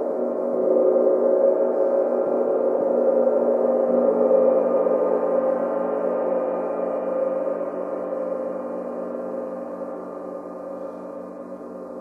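Flat rimless gong played with a mallet, building a howling wash of many overlapping tones. It swells about a second in and again a few seconds later, then slowly dies away.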